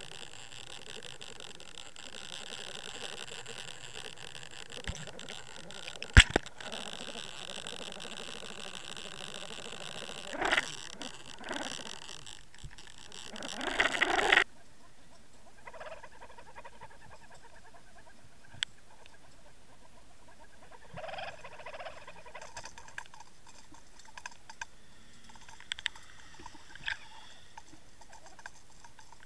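Underwater sound from a towed underwater camera: a steady rush of water with a faint whine, a sharp knock about six seconds in, and swishing surges that build and cut off suddenly about halfway through. After that, a quieter rush of water with scattered small ticks and clicks.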